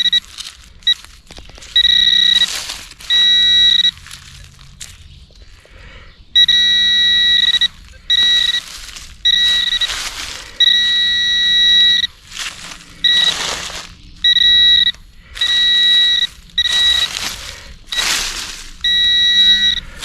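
Metal detector sounding repeated steady high-pitched beeps, switching on and off while it is held over a target in the dig hole, between scrapes of digging in soil.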